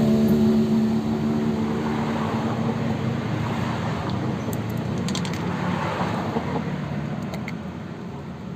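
Motor vehicle engine hum fading gradually as it moves away, with a few faint light clicks partway through.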